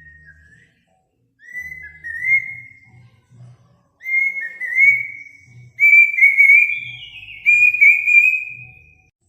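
Bird song of clear whistled phrases with sliding pitch, short at first, then longer and louder, the last ones lasting over a second each, with a higher falling note laid over them near the end. Faint low pulsing sits underneath.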